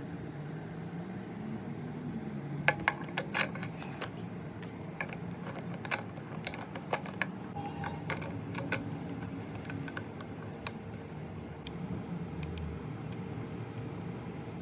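A string of light, sharp clicks and taps from small hard parts being handled, loudest a few seconds in and thinning out after about ten seconds, over a steady low hum.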